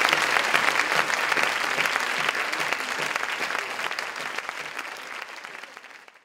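Audience applauding in a cinema hall, a dense clapping that fades out gradually over the last few seconds.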